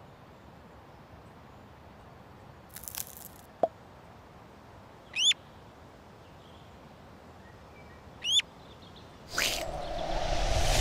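Cartoon sound effects of an egg hatching: a short crackle of the shell breaking and a small pop, then a duckling peeping twice in short rising chirps. Near the end a loud whoosh swells up and stops suddenly as the scene sweeps on.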